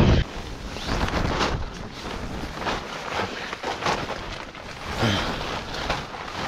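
Nylon sleeping-bag and bedding fabric rustling and crinkling as it is spread out and smoothed by hand, in irregular scrapes and crackles. A brief falling tone about five seconds in.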